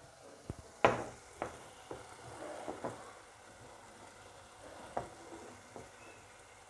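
Kitchen clatter: about seven sharp knocks and taps of utensils, the loudest just under a second in, with a faint frying sizzle between them.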